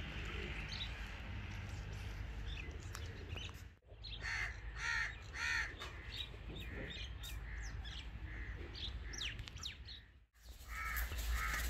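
Crows cawing outdoors: a run of harsh caws about half a second apart a few seconds in, then fainter caws, with small birds chirping.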